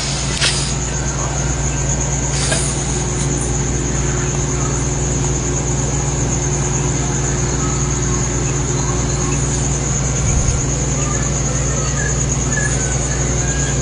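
Steady low mechanical hum with a constant high-pitched whine above it, unchanging throughout.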